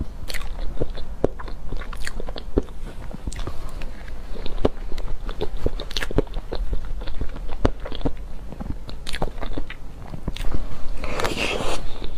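Close-miked eating of soft soy-milk box cake: a steady run of wet mouth clicks and chewing, with the metal spoon scooping from the plastic box. A louder noisy stretch comes near the end.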